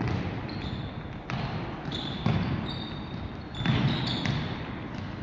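Football being kicked and bouncing on an indoor pitch: four dull thuds a second or so apart, each echoing in the large hall, with a few short high squeaks in between.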